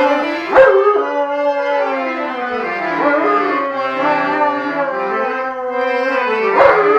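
Accordion playing sustained chords while a German Shepherd howls along, its voice gliding up and down over the music, with a short sharp cry about half a second in and another near the end.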